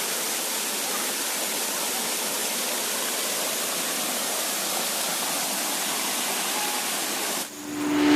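Water of a small waterfall rushing steadily as an even hiss. It cuts off suddenly near the end.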